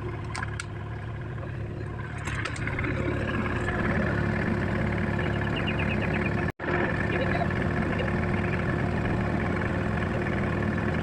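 Excavator engine running steadily, growing louder about four seconds in; the sound cuts out for an instant about two-thirds of the way through.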